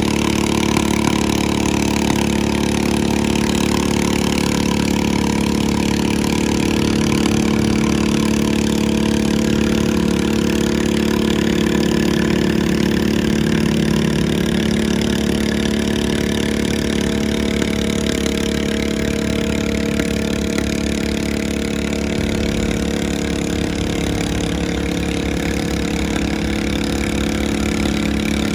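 Pulling lawn mower's engine running loud and steady throughout.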